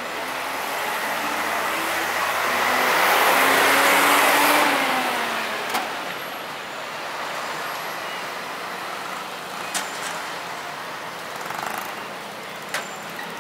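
A motor vehicle drives past close by. Its engine sound swells over a few seconds and drops in pitch as it goes, then gives way to steady street traffic noise with a few sharp knocks.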